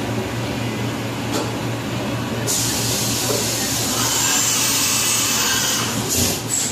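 1996 Fadal VMC-8030HT vertical machining center running with a steady low hum. A little over two seconds in, a loud spraying hiss starts and lasts about three seconds, followed by two short hisses near the end.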